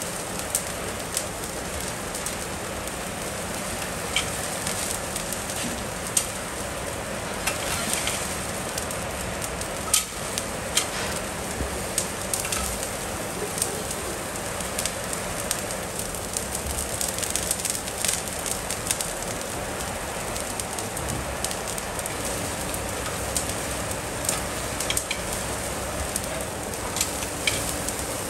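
Thick bone-in beef chops sizzling on a steel grill over glowing embers, with a steady hiss and irregular sharp crackles and pops from the fire and dripping fat. A faint steady hum joins in the last few seconds.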